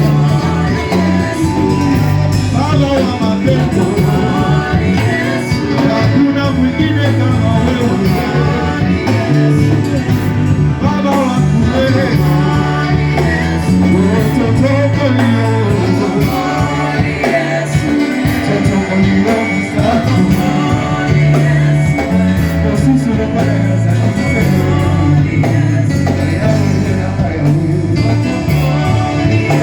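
Church worship music with singing over a band, carried by a steady bass line that moves from note to note.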